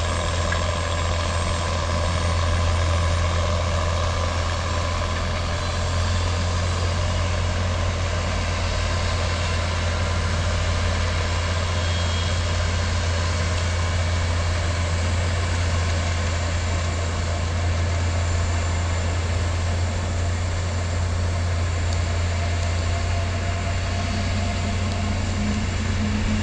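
Steady engine noise from an Airbus A380 under pushback by its tow tug on the apron: a continuous low hum with an even hiss and faint whine above it.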